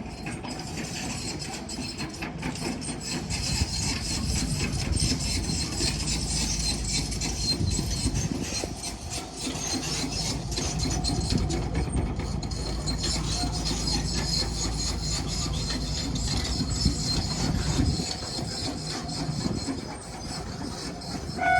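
Electric train of the Konan Railway Owani Line rolling past on the rails: a steady rumble of wheels on track with dense clicking and a high hiss. The level drops near the end.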